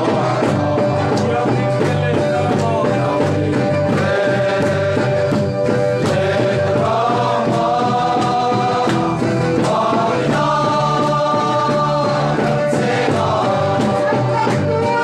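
Loud gospel worship music: a crowd singing a hymn together over a steady drumbeat.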